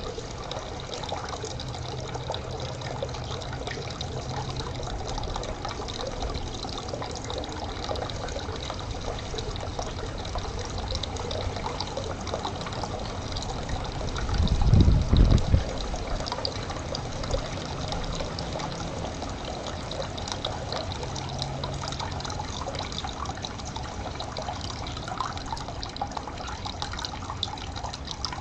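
Stream water running and trickling steadily, with a brief loud low rumble about halfway through.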